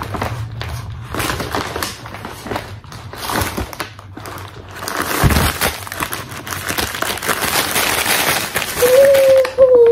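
A large plastic bag of individually wrapped mochi being shaken and emptied, the plastic wrappers crinkling and rustling as the pieces tumble out onto a table. The crinkling grows denser about halfway through, with a dull thump about five seconds in.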